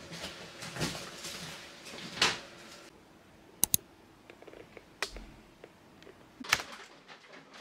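Scattered light clicks, knocks and rustles of handling in a small room, with two sharp clicks in quick succession a little past halfway and single sharp clicks near the end.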